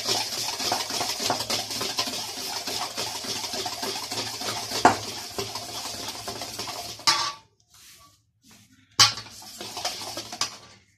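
Wire whisk beating yogurt in a stainless steel bowl: a fast, steady scraping and clinking of the wires against the metal. It stops for about a second and a half after about seven seconds, then starts again with a sharp knock on the bowl.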